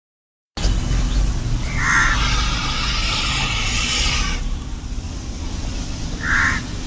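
A bird giving short harsh caws, three times, over a loud steady low rumble and a stretch of hiss.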